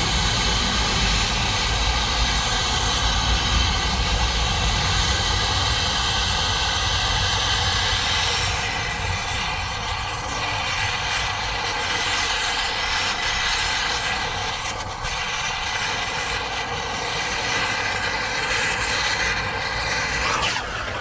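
Steady drone of a running machine, with a high whine over a broad rushing noise. It eases off a little about eight seconds in and changes sharply near the very end.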